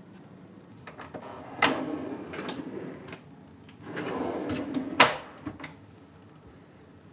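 A wooden drawer slides open with a sharp click and a sliding rub. Then it is pushed shut with another slide that ends in a sharp knock about five seconds in, followed by a few light clicks.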